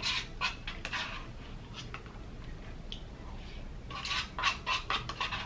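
Spoon scraping and clicking in a paper cup of chili as it is eaten. Scattered short scrapes come first, then a quick run of them about four seconds in.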